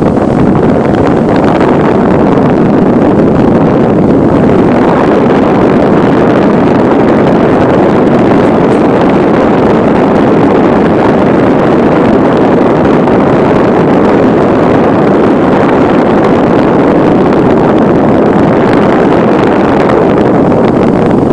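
Hurricane-force wind blowing hard over the microphone: a loud, steady rushing roar of wind noise.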